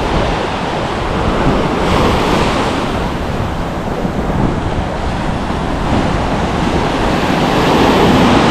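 Ocean surf breaking on the beach: a steady wash of waves that swells about two seconds in and again near the end, with wind buffeting the microphone.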